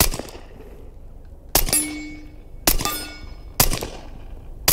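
Four suppressed shots from a SilencerCo Maxim 9, an integrally suppressed 9mm pistol, firing 147-grain subsonic rounds: one at the start, then three about a second apart. The last three are each followed by the ringing clang of a steel target plate being hit.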